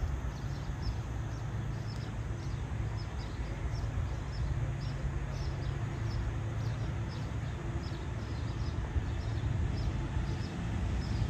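Low, steady rumble of a distant diesel locomotive approaching, with small birds chirping in short repeated notes, two or three a second.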